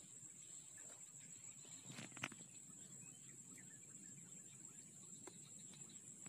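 Faint field ambience: insects trilling in one steady high-pitched drone, with a single short click about two seconds in.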